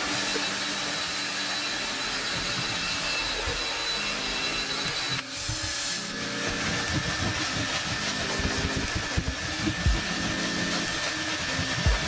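Carpet extractor's suction wand drawn across automotive carpet: a steady suction hiss with the tool rubbing over the pile, briefly dropping out about five seconds in. There are a few soft knocks in the second half.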